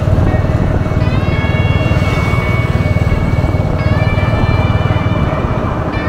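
Royal Enfield Hunter 350's single-cylinder engine running steadily through its stock exhaust while the bike cruises at road speed, a deep, even thump of firing pulses.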